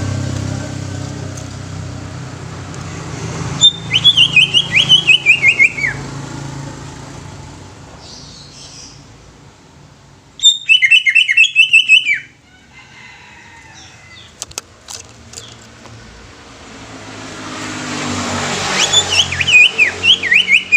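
Greater green leafbird (cucak ijo) singing three quick phrases of rapid whistled notes, each about two seconds long, the notes stepping down in pitch. Behind the song, a low engine rumble fades away early on and swells again near the end.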